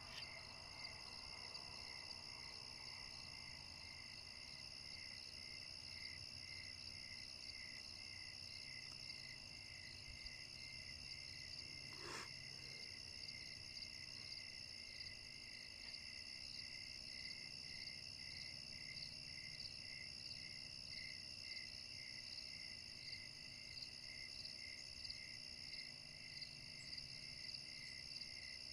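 Faint night insect chorus of crickets: a steady high trill with a lower chirp repeating evenly about once a second. A single brief click about twelve seconds in.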